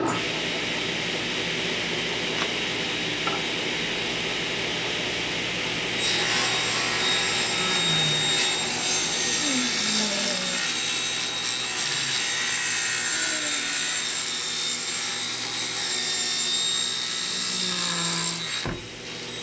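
Table saw switched on and running, then ripping a composite deck board lengthwise along the fence. The sound grows louder and hissier as the blade enters the board about six seconds in, and drops back shortly before the end when the cut is through.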